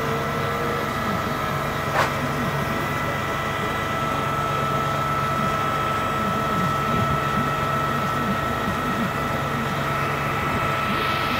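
Diesel delivery truck's engine running steadily to power its knuckle-boom crane while the crane lifts a pallet of roof tiles, with a steady high whine over the engine. A single sharp knock about two seconds in.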